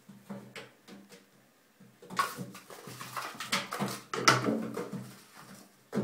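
Kitten's paws and claws skittering and scrabbling on the surface of an empty bathtub as it pounces on and bats a small toy, with quick knocks and scrapes that come thickest in the middle. Under them, a low vocal sound rises and falls in short spurts.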